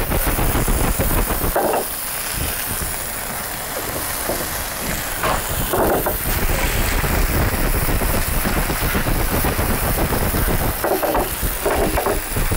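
Potato wedges and chicken escalopes frying in oil in two pans on gas burners, a steady sizzling hiss as they brown.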